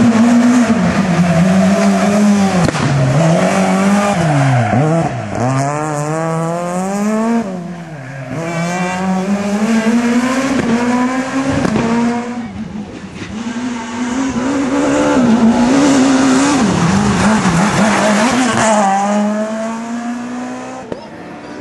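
S2000 rally cars' two-litre four-cylinder engines at full stage pace, the revs climbing through the gears and dropping sharply on each shift or lift, several times over.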